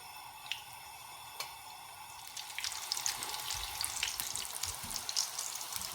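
Vermicelli-coated potato cutlets shallow frying in oil, sizzling steadily with a few small pops. A little over two seconds in the crackling grows louder and busier.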